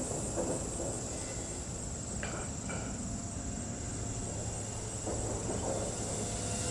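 Blade 130x electric RC helicopter flying high overhead: a steady, thin, high-pitched whine from its motor and rotors over a low background rush.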